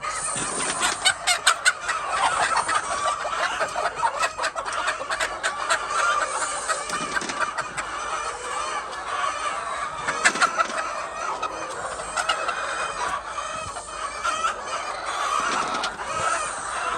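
A flock of hens clucking together without a break, with many sharp clicks and taps mixed in.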